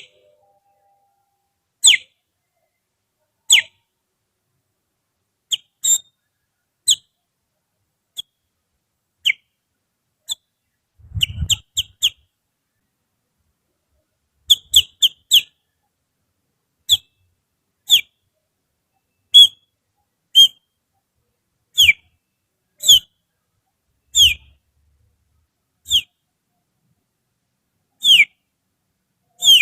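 Finger whistling that imitates the song of a kutilang (bulbul): short, sharp whistled notes, mostly falling in pitch, one every second or two. About a third of the way in and again near the middle come quick runs of several notes, and a low thump sounds with the first run.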